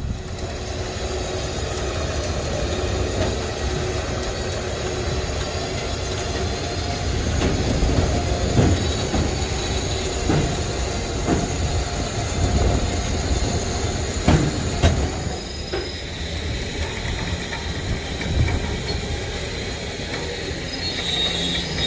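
A rusty 1971 Plymouth station wagon being levered up onto a steel car-trailer deck with a wooden pole under its tire: squeaks, creaks and scattered clunks, the loudest about eight, fourteen and eighteen seconds in, over a steady mechanical hum.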